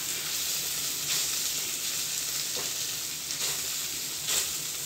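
Mashed potato and onion sizzling in hot oil in an aluminium kadhai while a wooden-handled masher pounds and stirs the mix, knocking on the pan bottom about four times.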